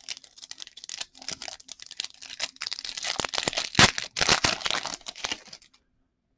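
Foil wrapper of a trading card pack crinkling and being torn open by hand, with a sharp rip just before four seconds in.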